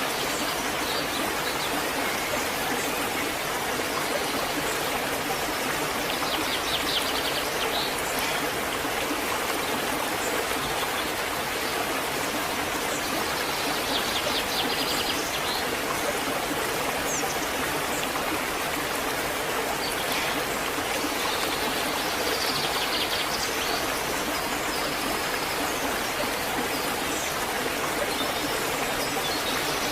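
Waterfall pouring with a steady rush of falling water. A small bird chirps in short rapid trills a few times over it.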